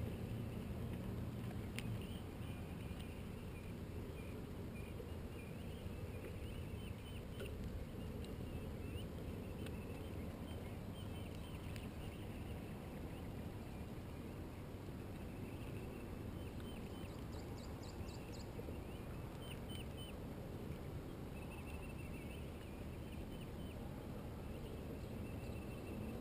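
Open-lake ambience: a low steady rumble of wind and water, with faint short animal chirps scattered through it and a quick run of ticks about seventeen seconds in.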